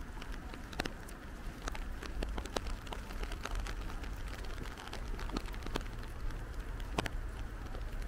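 Steady rain falling, with many separate drops tapping sharply close by at irregular moments, over a low rumble.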